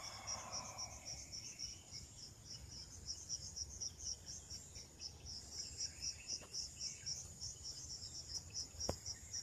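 Insect chirping in a steady, fast, even rhythm, high-pitched and faint, with a single sharp click near the end.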